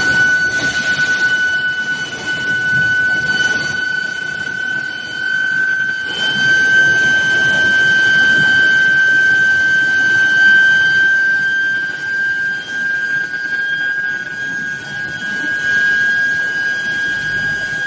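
Steady high-pitched whine of a medium-frequency induction heating furnace, its pitch creeping slowly upward, over the steady rumbling noise of the production line.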